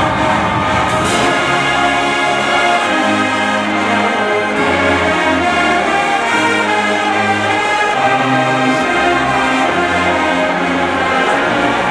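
Marching band playing a tune with brass and sousaphones, loud and steady; a bass line of held low sousaphone notes comes in about three seconds in.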